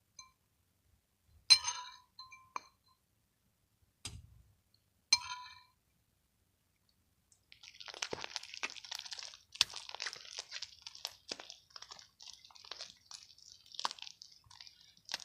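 A few sharp clinks of something hard struck against a container, then about 7 s in a continuous sticky crackling and squishing as a homemade slime of glue, soap, toothpaste and Tide detergent is mixed and worked.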